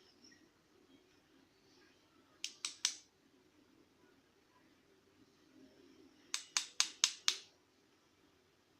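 Small sharp metallic clicks as the parts of a disassembled euro cylinder lock are handled: a quick run of three, then a few seconds later a run of five, each ringing briefly.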